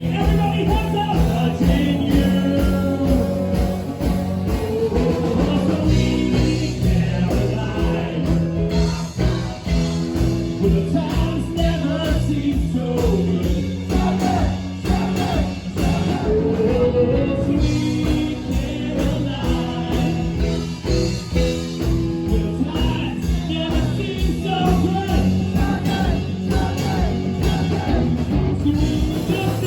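A rock band playing with a singer: guitar, bass and a steady drum beat under a sung melody.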